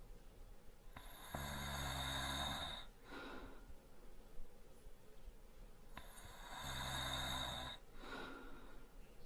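A sleeping man snoring lightly. Twice, about five seconds apart, a buzzing snore comes on the breath in, followed by a softer, airy breath out.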